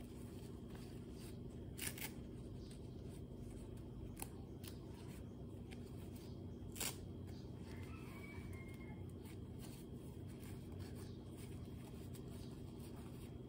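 Disposable diaper being fastened on a baby monkey: a few short, sharp crackles of the plastic diaper and its tape tabs, the loudest about two seconds in and again near seven seconds, over a steady low hum.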